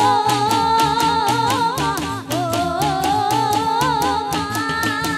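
Live Gujarati folk music: a singer holds long, slightly wavering notes over a quick, steady drum beat and a bass line.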